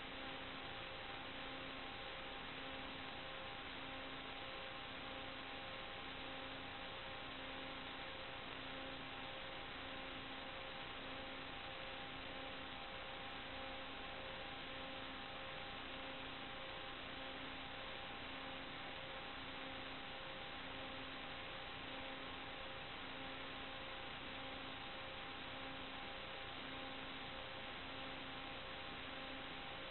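Steady electronic hiss with a faint hum of several steady tones, and a low tone pulsing about once a second. It is the noise floor of an FPV video downlink recording, with no sound from the aircraft itself.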